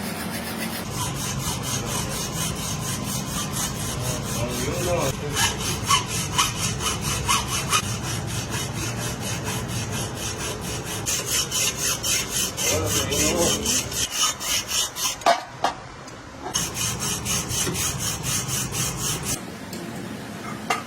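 Metal being worked at a lathe: a fast, even rhythmic rasping scrape, with a short break about fifteen seconds in.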